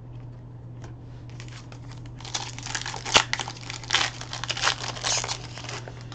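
Plastic wrapper of a trading card pack being torn open and crinkled: a run of crackling rustles lasting about three seconds, with one sharp snap near the middle.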